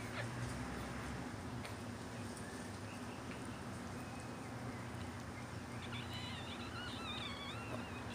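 A newborn Chihuahua puppy gives a short run of thin, wavering squeaks about three-quarters of the way through. Under it is a steady low hum, with a few faint clicks earlier on.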